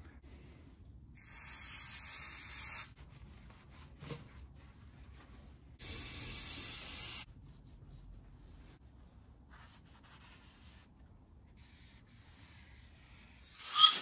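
Aerosol cleaner sprayed in two short steady bursts of about a second and a half each, with faint wiping and handling of parts in between. A louder burst begins just before the end.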